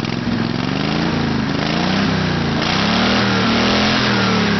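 Lawn tractor's small engine running fast on the hand throttle, overriding the governor, its pitch rising and falling a few times as the speed swings; about 4,500 rpm.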